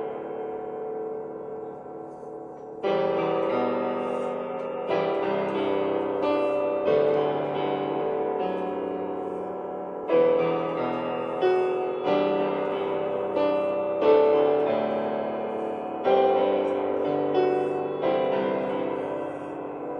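MOSEN 88-key digital piano playing its sampled piano sound: chords struck every second or two and left to ring, quieter for the first few seconds and then fuller.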